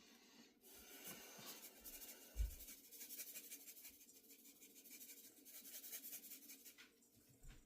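Cajun seasoning being shaken from a shaker container: a faint, rapid, scratchy rattling that lasts about six seconds, with a single low thump about two and a half seconds in.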